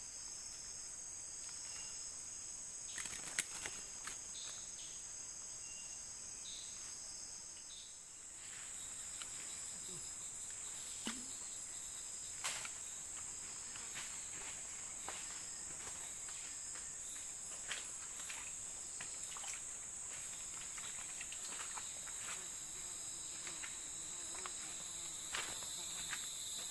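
Forest insects calling: a steady high-pitched buzzing chorus. About eight seconds in, one insect begins a pulsing call, roughly one pulse a second, that grows steadily louder toward the end.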